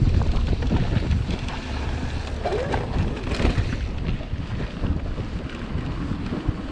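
Wind buffeting the microphone as a mountain bike rolls downhill on a gravel and dirt trail, tyres rumbling over the surface with frequent small knocks and rattles.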